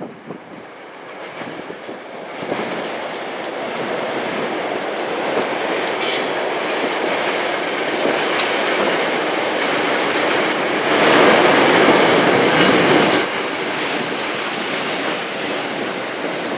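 North Jersey Coast Line commuter train passing, its wheels clattering over the rail joints; the sound builds over the first few seconds and is loudest a little past the middle, then eases off.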